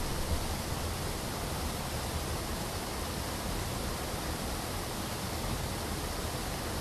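Steady, unchanging rushing noise, an even hiss spread across all pitches with a low rumble beneath.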